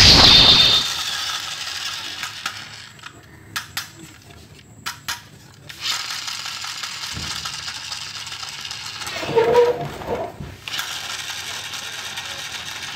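Plastic battery toy train handled and turned over in the hands: scattered clicks and rattles over a steady hiss. A loud burst with a falling pitch comes right at the start.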